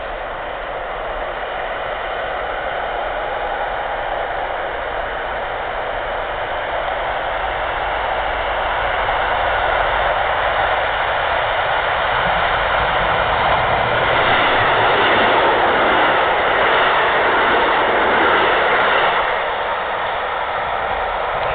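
Electric trains passing at speed on an electrified main line: rolling wheel and rail noise that builds steadily as a passenger electric multiple unit approaches, peaks as it goes by, then drops off suddenly near the end.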